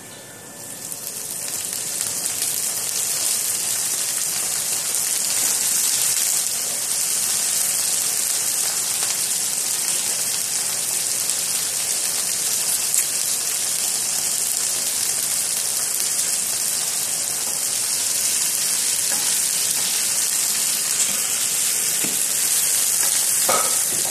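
Cut yardlong beans (sitaw) sizzling in oil in a frying pan: the sizzle swells over the first couple of seconds as the beans go in, then holds steady.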